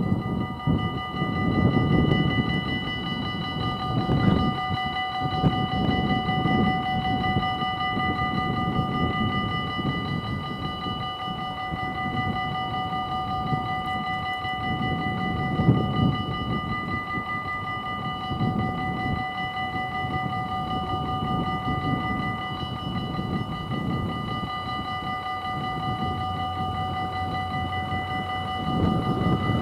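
Level-crossing warning bell ringing rapidly and without pause as the half barriers lower, with gusts of wind buffeting the microphone. Near the end a low rumble builds from the approaching train.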